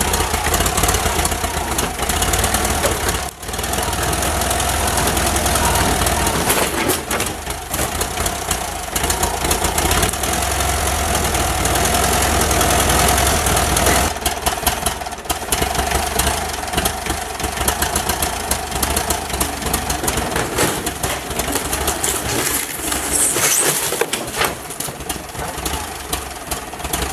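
Tractor engine running roughly and unevenly, which the owner puts down to a bad distributor cap awaiting replacement.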